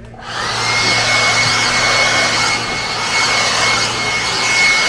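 Leaf blower started up and running at full speed: a loud rush of air with a high, steady whine that rises into place as it spins up.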